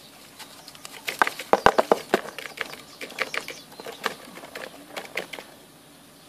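Mesh shrimp trap shaken and emptied over a bucket of water: a quick run of sharp clicks and patters as small freshwater shrimp and water drops fall in, thickest in the first couple of seconds, then thinning out.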